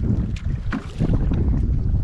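Wind buffeting the microphone over choppy sea water, a steady low rumble broken by a few short splashes.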